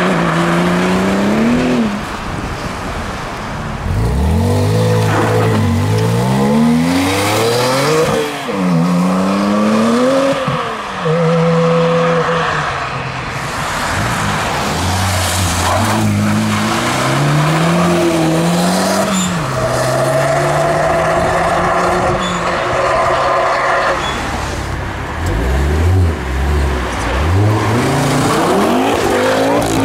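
Several performance cars, among them a Porsche 911 Turbo, an Abarth 500 and a Mk2 Ford Focus RS, accelerating hard away one after another. Each engine note climbs steeply, then drops at the gear change, and a new car starts up several times.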